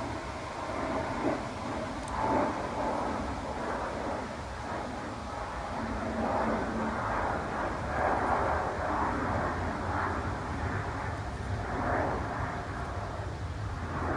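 L.T. Wright Pronghorn knife shaving a dried black cherry stick in slow strokes, a louder cut every couple of seconds, over a steady low rumble.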